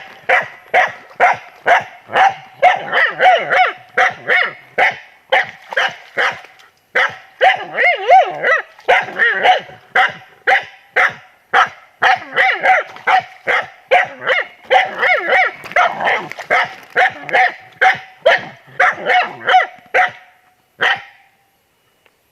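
A dog barking rapidly and persistently, about two barks a second, at something it has found in the forest. The barking stops near the end.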